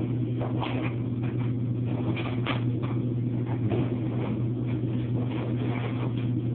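Steady low hum with scattered light knocks and rustles.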